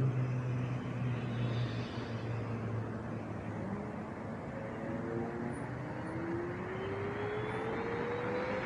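Extreme Bull Commander GT Pro electric unicycle on the move: steady wind and tyre noise. Over the last few seconds the hub motor's whine rises in pitch as the wheel speeds up.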